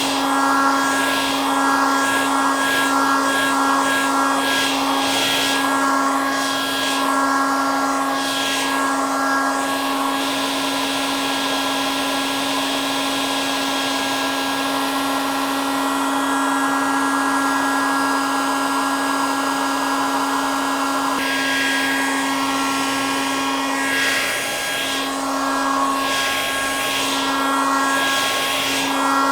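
Hair dryer running steadily: a constant motor hum with a higher whine over the rush of blown air. The air noise swells and fades about once a second for the first third and again near the end, and is smoother in between.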